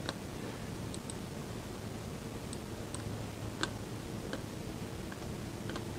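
Several short computer-mouse clicks, spaced irregularly, over a steady low room hum.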